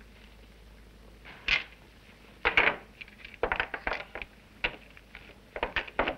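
Metal sardine tins set down one after another on a wooden table, a string of sharp clinks and knocks starting about a second and a half in.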